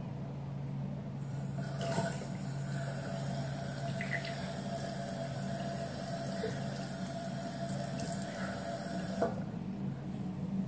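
Bathroom tap running into a sink while a face is washed in the stream, with a few small splashes. The water comes on about a second in and is shut off near the end.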